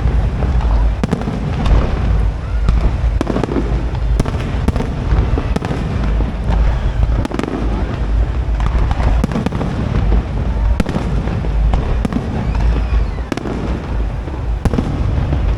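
Aerial fireworks display, shells bursting in dense, overlapping bangs over a continuous deep rumble.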